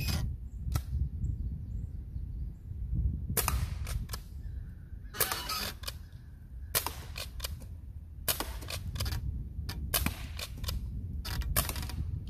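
Crosman 622 CO2 .22 pellet rifle firing shot after shot: sharp cracks, some coming in quick groups, mixed with the clack of the pump action being worked between shots. A low rumble runs underneath.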